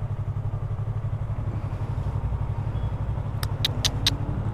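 Yamaha R3 parallel-twin motorcycle engine running at low revs with a steady, even pulse as the bike rolls slowly. About three and a half seconds in come four quick, sharp clicks.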